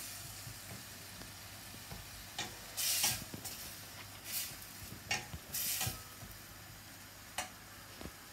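A metal spatula stirring a frying tomato-and-spice masala in a stainless steel kadai, the masala sizzling in short bursts about three seconds in, again a little after four seconds and near six seconds, with a few light clicks of the spatula against the pan.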